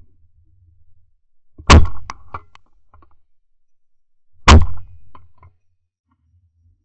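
Two shotgun shots about three seconds apart, each very loud with a short echoing tail.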